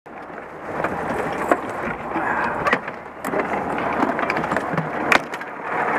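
Fire engine running in the cab, with rustling and a few sharp clicks and knocks as the cab door is opened and a firefighter in turnout gear climbs out.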